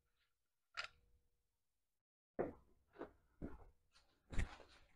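Soft footsteps on a concrete floor: one step about a second in, then a run of steps from about two and a half seconds in, roughly two a second.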